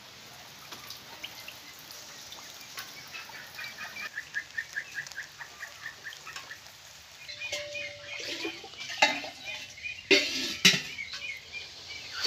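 Animal calls, short and repeated rapidly several times a second, with a few sharp knocks and clatters about nine to eleven seconds in.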